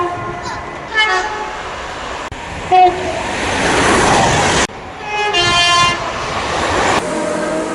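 British train horns sounding in short clips cut together: several brief blasts of two-tone horns, with the rushing noise of a passing train in between.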